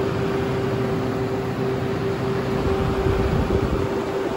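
Walk-in cooler evaporator fans running: a steady whir with one steady tone through it.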